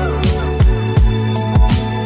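Background music with a steady beat: a deep thump about twice a second over held bass notes.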